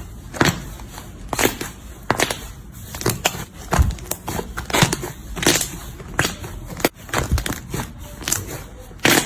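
Slime being squeezed and pressed by hand, giving irregular sharp crackles and clicks, about one to two a second.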